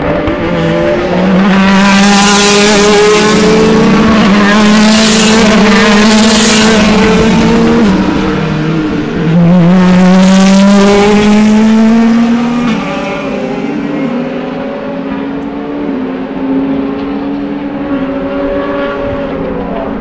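DTM touring cars' V8 engines at full throttle on the track, their pitch climbing through the gears with drops at each upshift. Loudest in the first half, then fading as the cars pull away after about twelve seconds.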